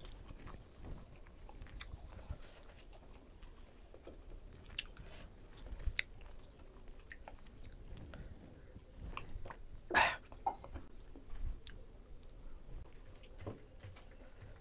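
Close-up chewing and mouth sounds of a man eating mutton biryani by hand, with scattered small wet clicks and smacks. One louder sound stands out about ten seconds in.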